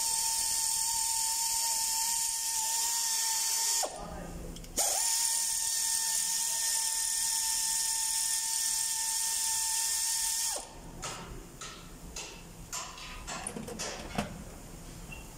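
Pneumatic air ratchet spinning a bolt out of the camshaft timing sprocket, a steady whine over air hiss. It runs in two long spells with a short break about four seconds in, and stops about ten seconds in. Light metallic clicks and clinks of parts being handled follow.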